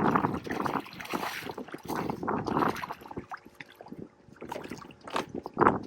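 Water lapping and slapping against the hull of a small fishing boat in choppy water, in uneven splashes that are strongest in the first few seconds and again near the end.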